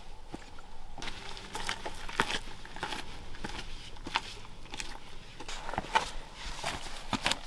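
Footsteps of people hiking a mountain trail: a run of irregular, sharp steps.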